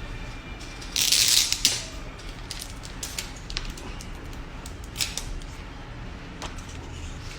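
Packaging being handled during a phone unboxing: a loud rustling scrape about a second in, then a few light clicks and taps.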